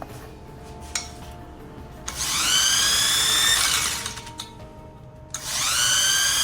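Electric drill spinning a 24 V truck alternator on a bench test, run twice: each time the whine climbs in pitch, holds steady for about a second and a half, then dies away. This is the check that the newly wired alternator turns and charges.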